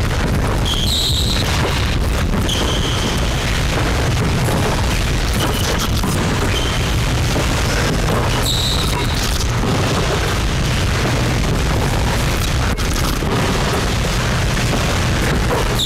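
Steady low rumbling noise with a few short, high squeaks of basketball shoes on a hardwood court, the clearest about a second in and about eight and a half seconds in.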